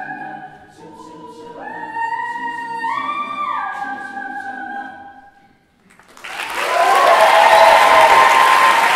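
A cappella group singing a final chord that shifts up and down in pitch and then stops about five seconds in. After a brief silence, loud audience applause with cheering breaks out.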